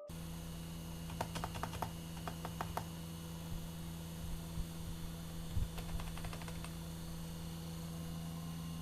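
Keys being pressed on a Logitech G213 Prodigy keyboard's membrane keys: scattered clicks in two short flurries, one a second or so in and another around six seconds in. A steady electrical hum runs underneath.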